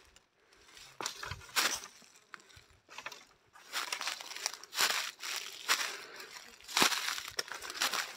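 Footsteps crunching through dry leaf litter, grass and twigs, one step roughly every second.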